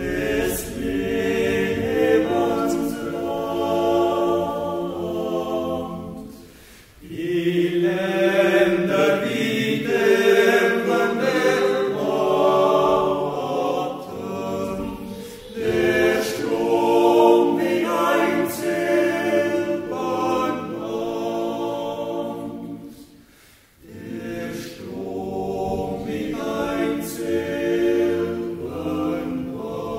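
Swiss yodel club choir singing a cappella in several voices. Its long held chords come in phrases, with brief breaths between them about 7 and 23 seconds in.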